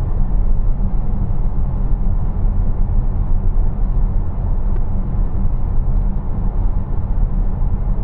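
Steady low road and tyre rumble inside the cabin of a 2023 Tesla Model X cruising at highway speed, about 67 mph, with no engine note since the car is electric.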